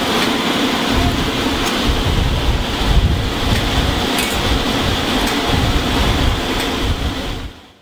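Wind buffeting the microphone in gusts, with a steady hiss and a few faint clicks; the sound fades out near the end.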